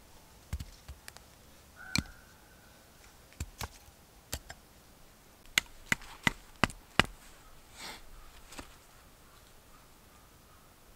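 Sharp knocks of green wood sticks being chopped and worked: a few single knocks, then five in quick succession just past the middle. One knock about two seconds in leaves a short ringing tone after it.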